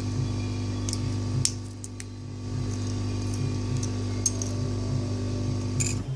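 Steady droning hum of a hot-air rework station's blower, with a few light clicks of metal tools on the phone board. The hum cuts off abruptly at the end.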